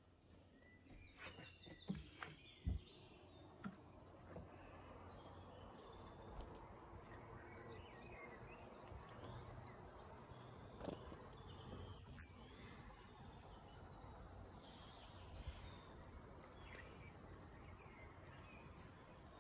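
Faint outdoor countryside ambience with scattered birdsong: short chirps and whistles from several birds. A few soft knocks come about two to four seconds in.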